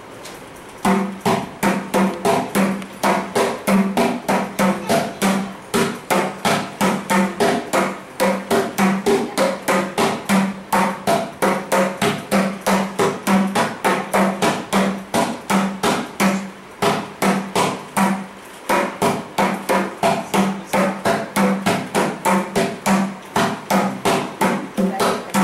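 Mridangam played solo in a fast stream of strokes, its tuned right head ringing at one steady pitch. It starts about a second in and breaks off briefly a few times, with a pause of about two seconds roughly two-thirds of the way through.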